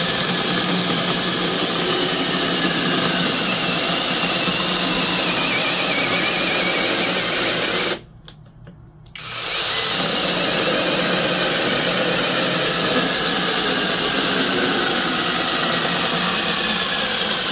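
Bei & Hong brushless 6-inch cordless mini chainsaw running steadily while cutting through a log. About eight seconds in it cuts out abruptly, which is typical of its overload cutout tripping under hard feed pressure. A second later it starts again, ramping up smoothly to full speed, and cuts on.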